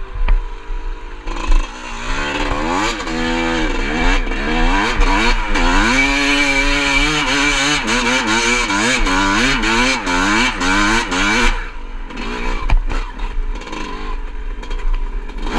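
Two-stroke Yamaha YZ dirt bike engine under load. After about a second and a half it revs up and climbs repeatedly, the pitch rising and dropping back with each shift. Near the end it comes off the throttle and runs lower and rougher, with knocks and clatter from the bike over rough ground.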